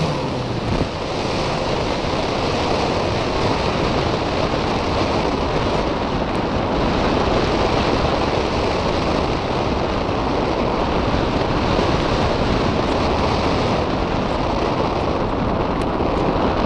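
Steady wind rushing over the microphone of a camera mounted on a Parkzone Radian electric glider, gliding with its motor off. In the first second, the dying whine of the electric motor falls in pitch and stops.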